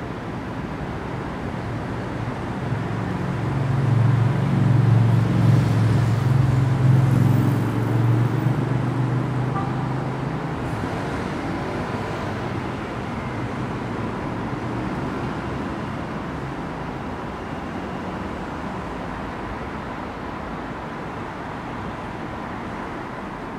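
City street traffic noise, with a heavy vehicle passing: its low engine sound swells from about three seconds in, is loudest around five to eight seconds, and fades out about ten seconds in, leaving the steady hum of road traffic.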